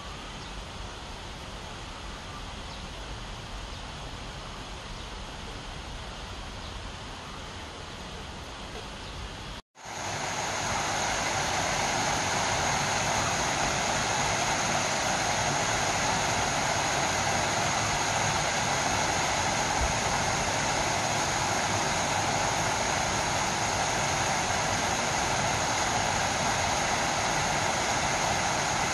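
Steady rushing of an artificial waterfall pouring down a rock face, starting after a short break about ten seconds in. Before that, a quieter even outdoor background.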